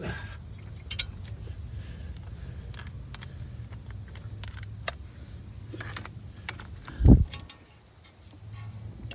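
Scattered light metallic clinks and taps of hand tools and wheel bolts being handled, over a low steady hum, with one heavy thump about seven seconds in.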